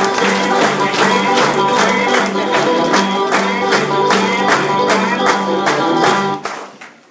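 Music with a steady beat, tambourines shaken in time about three strokes a second; the music stops about six and a half seconds in.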